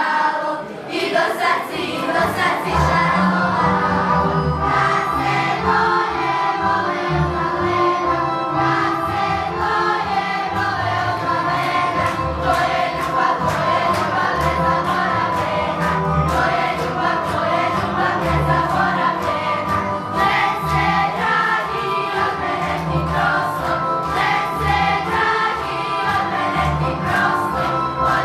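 Group of young voices singing a folk song together, with a steady low beat underneath.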